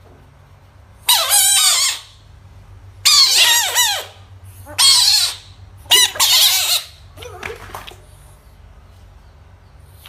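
Bullfrogs screaming in alarm as a toy is pushed at them: four loud, wavering screams of about a second each, then a fainter, shorter one near the end.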